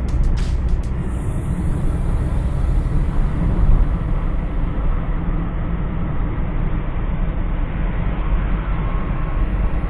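Steady road and engine noise of a moving car heard from inside the cabin, a low rumble with a rushing hiss over it.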